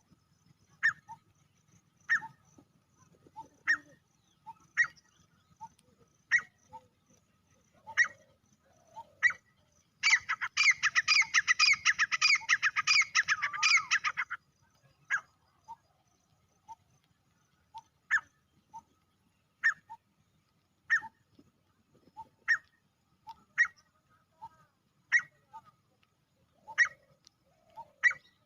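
Male grey francolin calling: short, sharp single notes every second or so, with a loud rapid run of repeated notes lasting about four seconds partway through.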